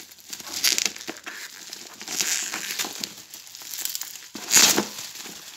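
Plastic bubble-wrap packaging crinkling and rustling as it is cut with scissors and pulled open around a boxed item, in several irregular bursts, the loudest about four and a half seconds in.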